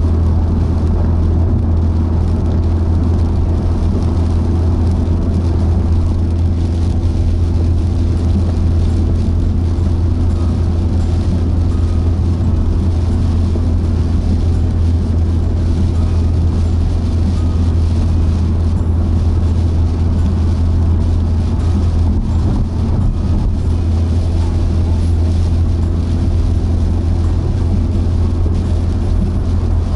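Car driving at motorway speed on a wet road, heard from inside the cabin: a steady low drone of engine and tyre noise with an even hiss above it.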